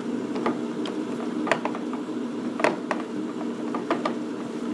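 American Pacemaker engine lathe running with a steady gear hum, broken by several sharp clicks and clacks as the headstock speed lever is worked to select 1500 RPM.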